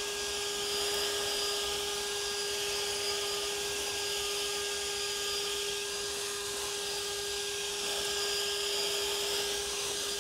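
Honda battery-powered leaf blower running at a steady speed: one constant whine from the electric fan over a strong rush of air, not changing in pitch or level.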